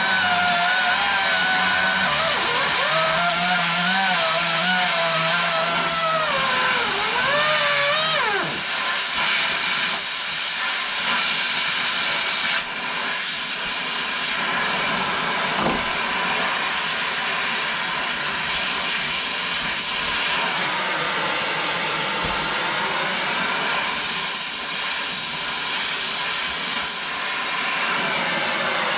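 Melted-down pneumatic angle grinder run on full air: a wavering whine for about eight seconds that sags and dies away, leaving a steady rush of hissing air.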